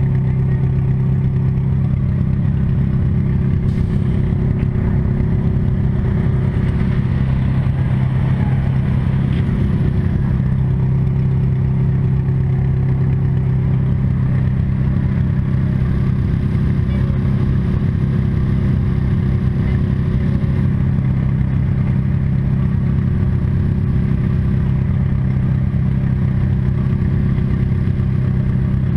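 Demolition derby car's engine running steadily, heard close up from a camera inside the car. It holds a deep, even drone with little change in pitch.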